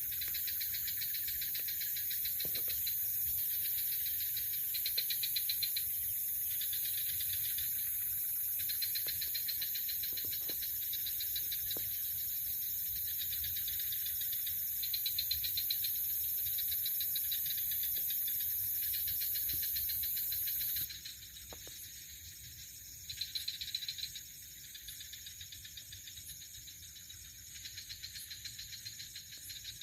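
Night chorus of crickets and other insects: rapid pulsing trills, with a very high steady insect whine that cuts off suddenly about two-thirds of the way through.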